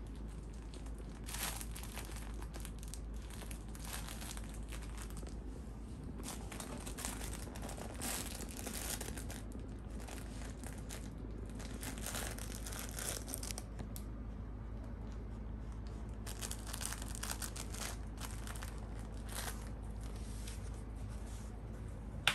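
Rustling and crinkling of a plush cat toy and the fabric under it as a pet otter grabs, bites and rolls with it, coming in irregular bouts of several seconds each.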